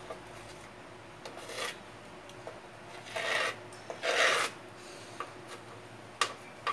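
Grout paste being stirred and scraped in a small plastic cup: a few short scratchy strokes against the cup, the loudest about three and four seconds in, with small clicks near the end.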